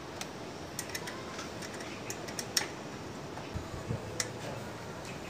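Light, irregular metallic clicks and clinks of hand tools working on the R180 engine's valve tappet adjusters while the valve clearance is set, over a faint steady background hum.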